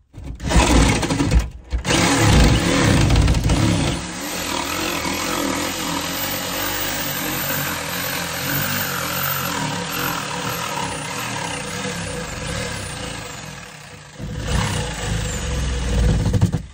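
Electric jigsaw running and cutting through the wall. The saw stops briefly about a second and a half in, runs loudest over the first few seconds, and gets louder again near the end before it stops.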